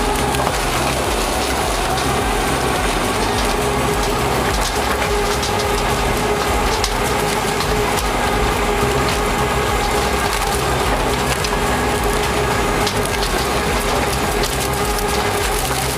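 Industrial shredder grinding and crunching wood: a steady machine hum under a constant run of splintering cracks.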